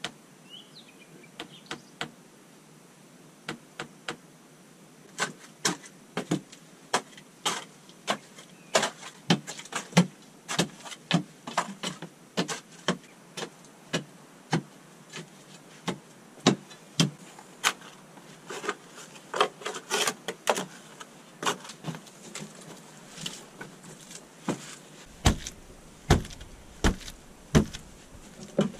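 Repeated thuds of long poles tamping clay soil down around the base of an upright log post, irregular, about one to two blows a second. In the last few seconds come heavier, deeper thumps of boots stamping the earth firm around the post.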